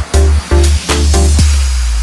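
Background electronic music with a heavy bass line and short chopped chords, about three a second, giving way to a held bass note under a hiss about one and a half seconds in.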